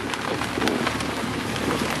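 A jeep moving along a rough mountain track, heard from inside: a steady rush of road noise with a low rumble and many small crackles and clicks.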